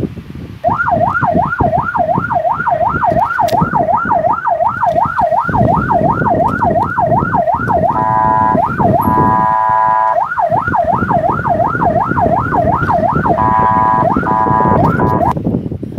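An electronic emergency-vehicle siren starts about a second in and warbles fast, about three rises and falls a second. Twice it switches for a second or two to a steady buzzing horn tone, and it stops just before the end. Under it runs a low rumble and clatter of the toy van's plastic wheels rolling across the tiled floor.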